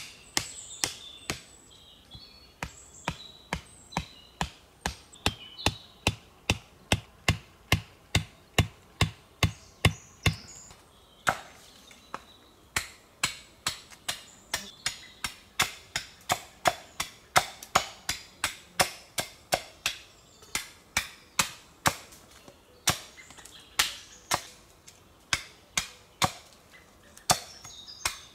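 Axe chopping wood in a steady rhythm, about two strokes a second, with a short break about eleven seconds in.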